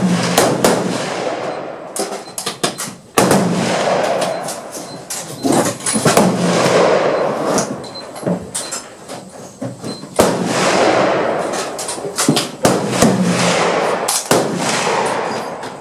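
Rifle shots on a shooting range: several loud reports a few seconds apart, each trailing a long echo, with fainter sharp cracks between them.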